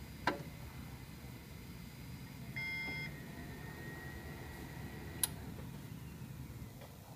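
A single electronic beep about half a second long, with a sharp click near the start and another about two seconds after the beep, over a steady low hum.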